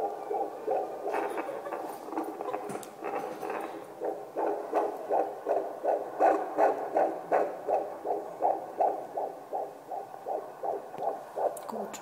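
Fetal heartbeat played through a handheld fetal Doppler's speaker: fast, even pulses at about two and a half a second, a normal unborn baby's heart rate. A few sharp clicks are heard in the first few seconds.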